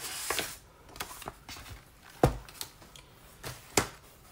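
Paper rustling as the pages of a paper notebook insert are flipped and the insert is pulled out of a traveler's notebook, with two sharp taps, one about halfway through and one near the end.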